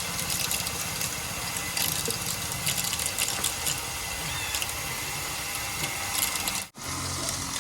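Creek water rushing through a bank of small mini-hydro turbines as they spin with no load on them: a steady rush of water with a fast mechanical rattle. The sound cuts out abruptly for a moment near the end.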